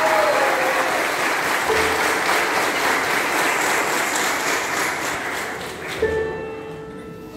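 Audience applauding, the clapping dying away over about six seconds; then a violin starts a single held note.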